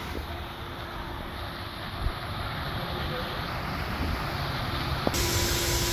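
Steady outdoor background noise with a faint, steady low hum. The hiss suddenly brightens about five seconds in.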